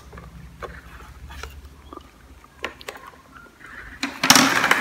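Scattered light taps and knocks on a plastic baby walker as a baby monkey and a toddler handle its tray and toy, then a loud, noisy scuffling burst lasting about half a second, a little after four seconds in.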